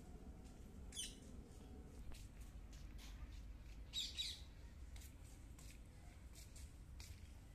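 Birds calling: two short, high, falling calls, one about a second in and a louder one around four seconds in, over a faint low background rumble.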